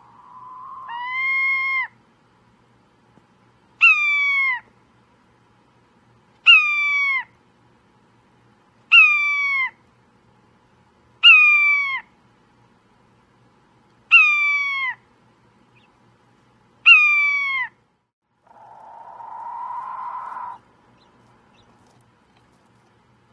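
A bird giving a series of six calls about two and a half seconds apart, each under a second long and falling in pitch. A drawn-out rising call opens the series, and a rougher, hoarse call ends it.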